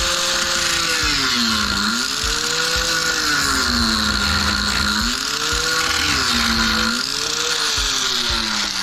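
Angle grinder with a big wheel grinding the heads off metal fasteners, its motor pitch sagging as it is pressed in and rising again as it eases off, about four times, over a steady high grinding hiss.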